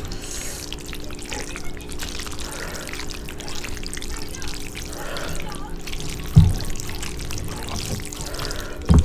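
Sauce-coated fettuccine being tossed and stirred in a skillet with a wooden spoon and a fork: wet squelching and slopping of noodles and sauce. Twice there is a knock of a utensil against the pan, the louder one about six seconds in.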